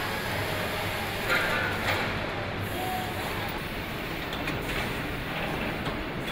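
Truck assembly line floor noise: a steady mechanical din of machinery and conveyors, with a brief louder noise about one and a half seconds in and a few light knocks.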